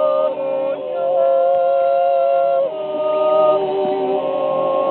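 Unaccompanied voices singing slow, sustained chords, each chord held for a second or two before moving to the next.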